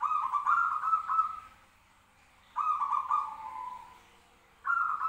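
Zebra doves (perkutut) cooing, answering one another: three stuttering coo phrases of rapid notes, each about a second and a half long and a couple of seconds apart.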